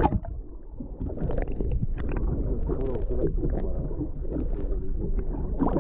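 Muffled low rumble and gurgling of seawater around a camera held underwater, after a short burst right at the start as the camera goes under.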